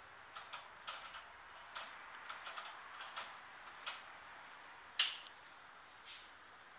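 Irregular light clicks and taps of a small hand tool and loose parts being handled while assembling and adjusting a heavy-duty leather sewing machine, with one sharper click about five seconds in. The machine's motor is not running.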